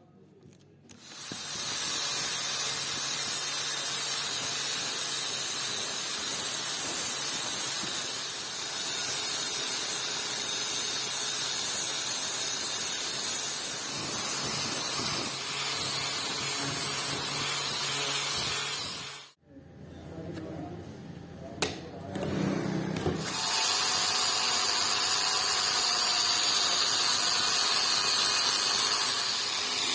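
Electric grinder running against the steel cleaver blade. It starts about a second in, stops abruptly about two-thirds of the way through, and after a few seconds of handling noise and a sharp click starts again and runs on.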